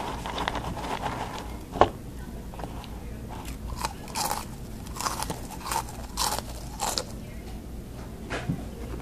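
A person chewing crunchy spicy cheese crackers: a sharp crunch about two seconds in, then a run of crunching bites, about two a second, through the middle.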